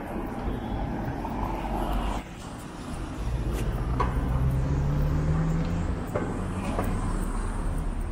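Road traffic: about three seconds in, a vehicle's engine rumble grows louder and its note rises as it pulls away, over steady street noise with a few short clicks.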